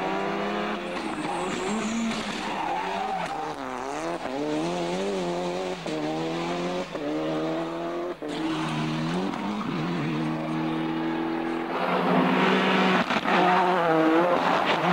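Ford Escort RS Cosworth Group A rally cars' turbocharged four-cylinder engines at full throttle, the pitch climbing and dropping again and again through gear changes, with a few sharp cracks from the turbo anti-lag system.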